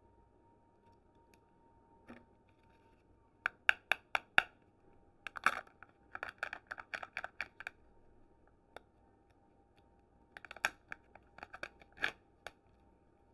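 Plastic Kinder Joy egg half and its foil seal being handled and peeled open: short clusters of sharp clicks and crackles, with pauses between them.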